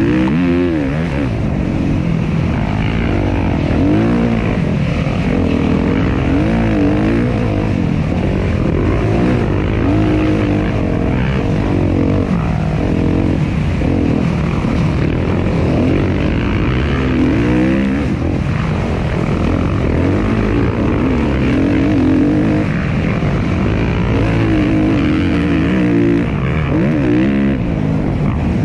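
Suzuki RM-Z250 four-stroke single-cylinder dirt bike engine revving up and down over and over, its pitch rising and falling as the throttle is opened and closed.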